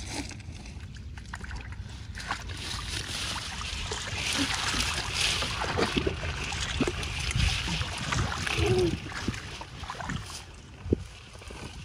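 Freshly cut water spinach stems and leaves rustling and crackling as they are gathered up by the armful from the canal's edge, busiest in the middle and easing off near the end, with some splashing in the shallow water.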